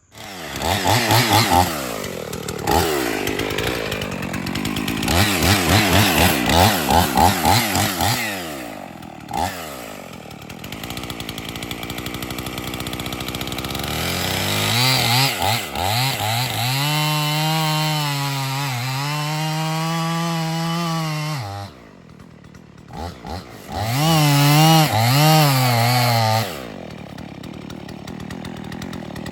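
Gas chainsaw cutting into a poplar trunk for the felling cut, its engine revving up and down as the chain bites. Some twenty-two seconds in it drops off briefly, then revs hard again for a couple of seconds before settling to a lower, steadier running.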